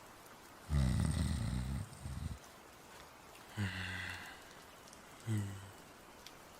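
A person voice-acting snoring. There is a long, low snore about a second in, then two shorter snores.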